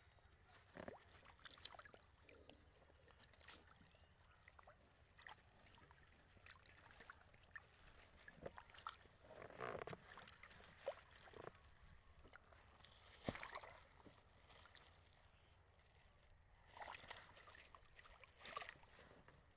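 Faint scattered crinkling, knocks and splashes of plastic sheeting and water being handled at a fish tank, loudest about halfway through and again a few seconds later. A bird repeats a short, high, falling call every second or two.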